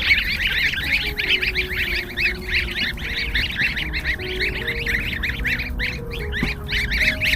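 A group of goslings peeping: a dense, continuous chorus of short, high chirps from many birds calling over one another.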